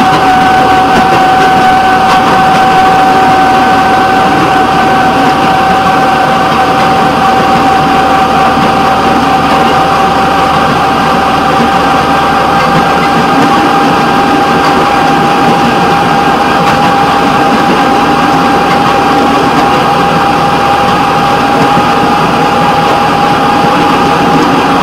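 Rail fire-patrol vehicle running steadily along the track: constant engine and rolling noise under a strong, steady whine that creeps slightly higher in pitch.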